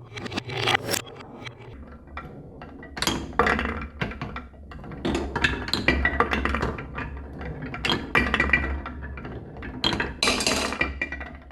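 Marbles clattering down a marble run track, with repeated bursts of quick clicks and clinks as they roll and drop along the pieces. A steady low hum runs underneath.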